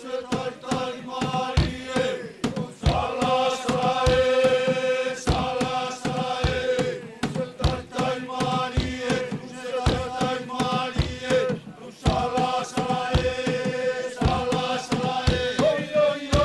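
A group of voices chanting together in long held notes over sharp percussive beats about twice a second: a Futunan mako dance chant.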